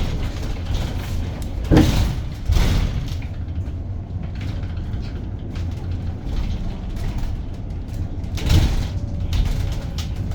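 Edison Motors SMART 093 electric bus heard from inside the cabin while moving: a steady low rumble of road and running noise. Three short, louder bursts of noise come near the 2-second mark, just after it, and again about 8.5 seconds in.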